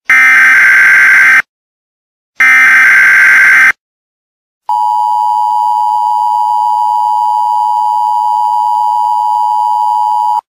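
Emergency Alert System tones: three harsh, buzzing data bursts of the SAME header, each just over a second with a second's gap between them. Then, about four and a half seconds in, comes the long, steady two-tone attention signal, which cuts off just before the end.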